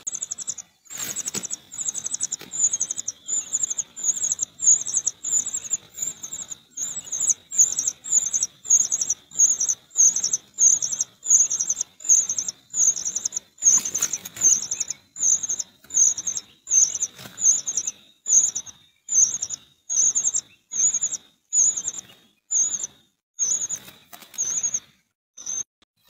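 Cuckoo chick begging: a thin, high call repeated over and over at about one and a half calls a second, stopping just before the end.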